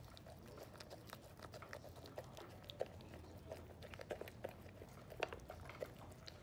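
Husky eating from a stainless steel bowl of dry kibble mixed with chicken and fish: faint, irregular chewing and crunching clicks, with a sharper click about three seconds in and another about five seconds in.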